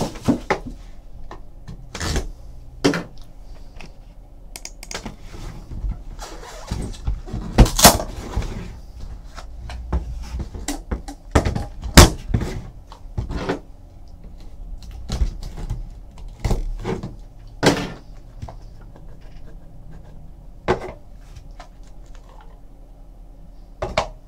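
Cardboard trading-card boxes being handled on a table: a hobby box lid lifted off and a small white inner card box slid out, set down and opened. This gives irregular taps, thuds and scrapes of cardboard, with the sharpest knocks about 8 and 12 seconds in.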